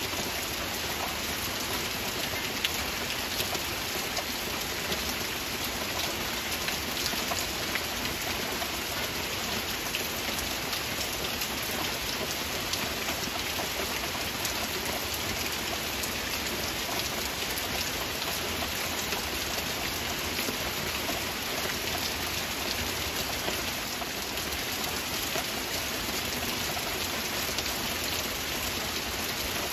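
Steady heavy rain: a dense, even hiss with many separate drop impacts ticking through it.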